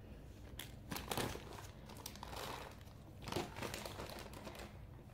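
Small plastic bags of cut glass beads crinkling faintly as they are handled, with a few light clicks.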